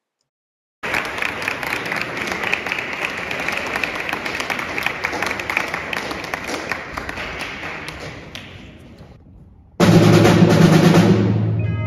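Audience applause that fades away after about eight seconds. Then a school percussion ensemble starts with a sudden loud stroke on low drums and cymbal, and it rings on as pitched mallet notes come in near the end.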